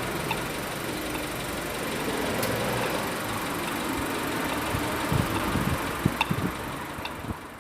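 Street traffic waiting at a pedestrian crossing, vehicle engines running, with a few short high pips from the crossing's acoustic signal near the start and near the end.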